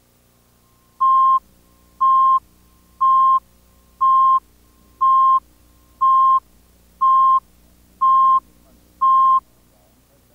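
Countdown leader beeps on a videotape: nine short, identical high-pitched tone beeps, one a second, counting down the seconds to the start of the programme. A faint steady hum lies under them.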